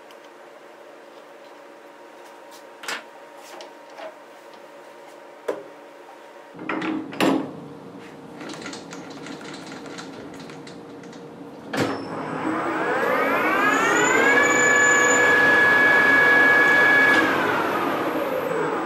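A metal lathe's spindle with a 5C collet chuck, working on a small titanium part. A few handling clicks and a clatter come first, then a sharp click, after which the spindle spins up with a rising whine. It runs steadily for about three seconds and then winds down near the end.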